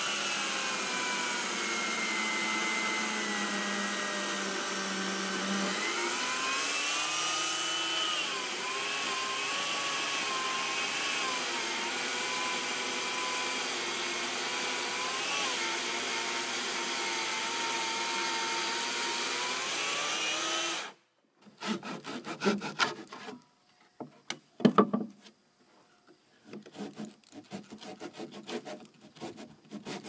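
Corded electric chainsaw running steadily as it cuts into a timber beam, its motor pitch dipping and rising under load, then shut off abruptly about two-thirds of the way through. After it stops, irregular scraping and several sharp knocks come from a hand tool paring wood out of the notch.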